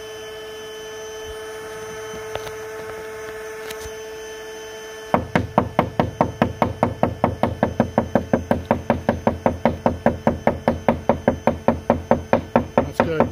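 Bee vacuum's motor running with a steady hum at a crack in a wooden barn wall. About five seconds in, quick, even knocking on the wall boards starts, about four to five blows a second, banging the wall to drive the yellow jackets out of their nest into the vacuum.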